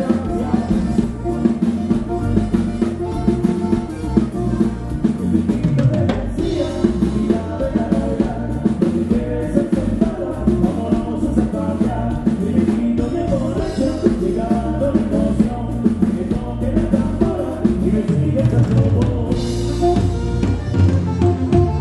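Live band music: a drum kit keeping a steady beat under guitar and melody instruments.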